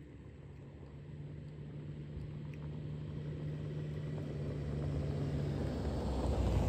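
A car approaches: its engine and tyre noise grow steadily louder.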